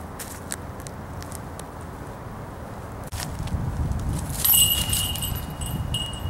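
A putted disc strikes the metal chains of a disc golf basket about four seconds in, and the chains jangle and rattle for about two seconds.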